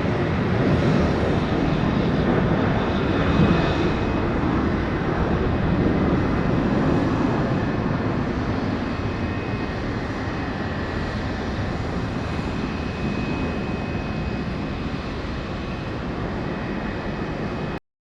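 Fixed-wing aircraft engine noise, a steady dense rumble with a faint high whine, slowly growing quieter before cutting off suddenly near the end.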